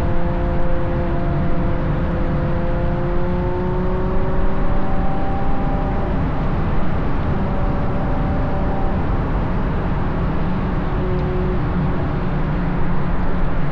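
Ferrari GTC4Lusso's V12 with a Capristo exhaust, cruising: its engine note climbs slightly over the first half, then sinks under a heavy, steady rush of wind and tyre noise.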